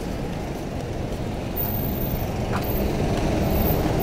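Traffic rumble from buses' engines and tyres at a street crossing, growing louder as a minibus drives past close by.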